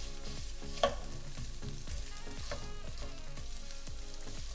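Cooked white rice and shrimp sizzling in a nonstick frying pan as they are broken up and stirred with a wooden spatula and a silicone spatula. A sharp clack of a utensil on the pan comes about a second in.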